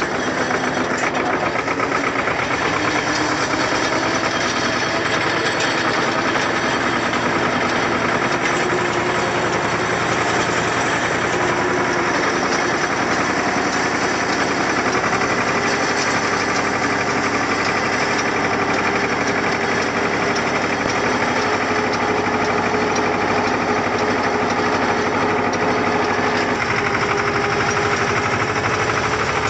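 Two-wheel walking tractor's engine running steadily under load while mowing grass, with a rapid, even pulse.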